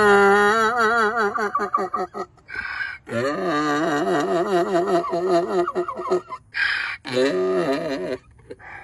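Donkey braying: long, wavering honks on the out-breath alternate with short, higher wheezing notes on the in-breath, three cycles in a row.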